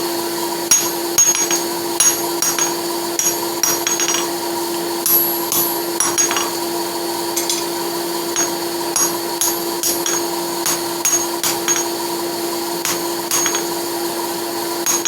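Hammer blows straightening a hot horseshoe on an anvil, sharp strikes coming irregularly about one or two a second. Under them a small electric forge blower runs with a steady hum.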